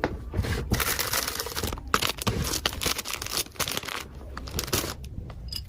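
Plastic packaging crinkling and rustling as it is handled, with many small sharp crackles. It eases off about four and a half seconds in.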